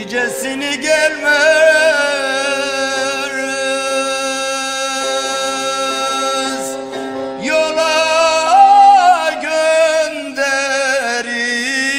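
Background music in Turkish folk style: long, ornamented held notes with a wavering vibrato over a steady drone, and a sliding rise in pitch about eight seconds in.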